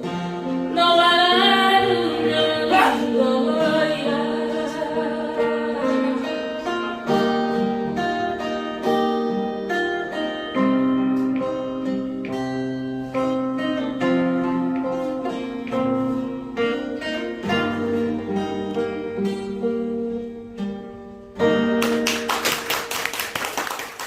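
A song sung to acoustic guitar accompaniment, with plucked notes and a sustained voice. The music stops about 22 seconds in and clapping and applause follow.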